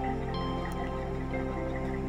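Soft background music of held, sustained notes.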